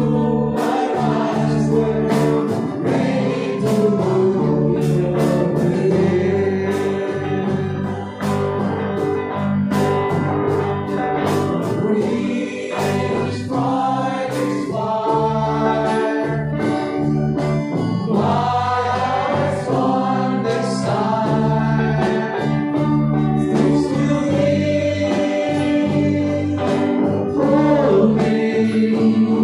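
A live praise-and-worship band playing a song: sung vocals over electric guitar, acoustic guitar and keyboard, with short percussive hits.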